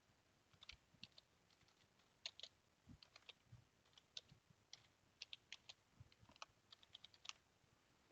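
Faint typing on a computer keyboard: irregular key clicks, several a second, stopping shortly before the end.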